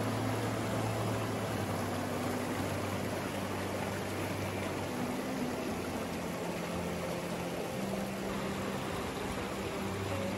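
A small rocky woodland stream rushing and splashing over boulders: a steady, even rush of running water. Faint low steady tones sit underneath, changing pitch every second or two.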